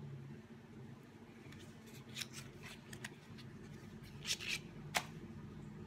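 Small cardboard lipstick box handled and opened by hand: a few scattered rustles, scrapes and clicks of thin card, the sharpest about five seconds in, over a faint low hum.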